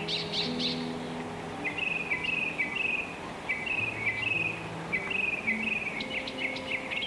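A small bird chirping in rapid high trills, short bursts of quick notes repeated every second or so, over soft background music with slow held low notes.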